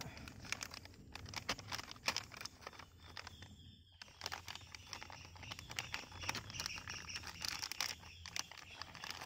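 Plastic bag of Z-Man soft plastic lures crinkling and rustling as it is handled, in many short scattered crackles.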